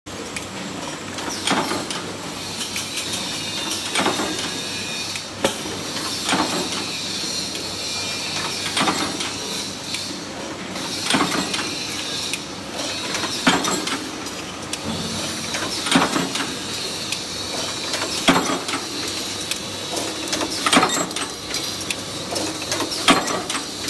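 Paint brush ferrule making machine, a flywheel-driven punch press, running: a metallic stamping clank about every two and a half seconds over a steady whine and hiss.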